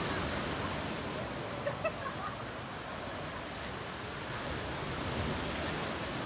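Sea waves breaking and washing on the shore, a steady rushing surf noise.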